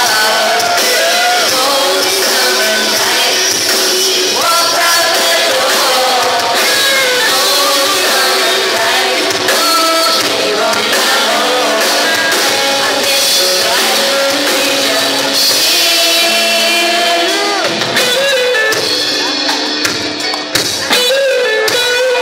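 Live rock band playing a song: two women singing into microphones over electric guitars, bass guitar and a drum kit, loud and steady throughout.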